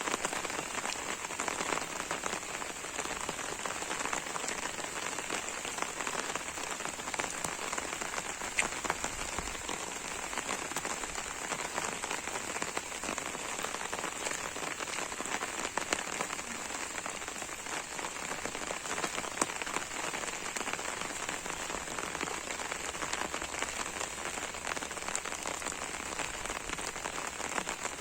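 Steady rain falling, with scattered sharper drop hits.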